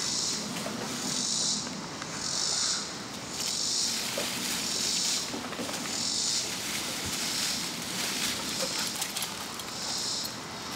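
Insects calling in a repeating pulsed buzz, about one buzz every second, over a faint rustle of dogs' paws in dry leaves and dirt.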